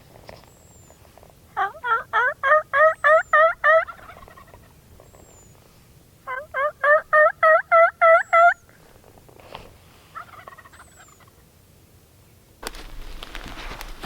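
Turkey calling: two quick series of about ten loud notes each, a few seconds apart, then a fainter short series. Rustling starts near the end.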